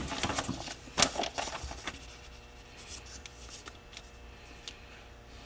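Paper towel rustling and rubbing as grease is wiped off a part, with a sharp rustle about a second in, then fainter handling sounds.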